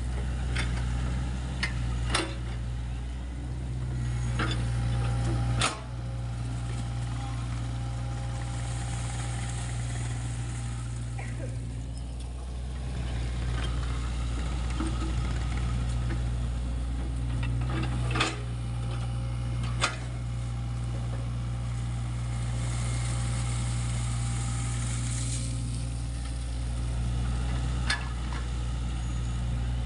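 SANY SY55C mini excavator's diesel engine running steadily under working load while digging wet mud, with several sharp metallic knocks from the bucket and arm linkage spread through.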